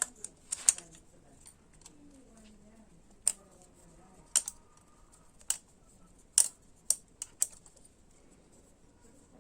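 Scattered sharp metallic clicks and taps of hand tools on a motorcycle engine's metal parts, about nine in all at irregular spacing, while the timing chain tensioner is being unscrewed.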